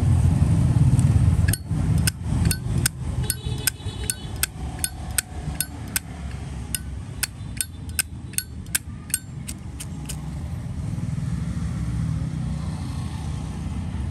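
Zippo lighter lid flicked open and snapped shut over and over: about twenty sharp metallic clicks with a brief ring, in the first two-thirds, over a low background rumble.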